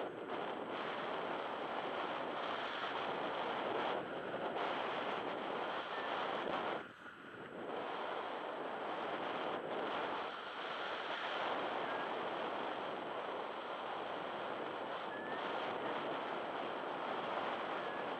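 Wind blowing across the microphone: a steady rushing noise that dips briefly about seven seconds in.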